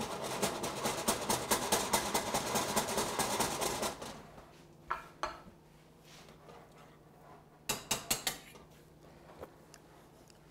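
A metal utensil stirring a small saucepan of butter sauce, a rapid clinking scrape for about four seconds, then sharp clinks against the pan: two about five seconds in and a quick run of four around eight seconds in.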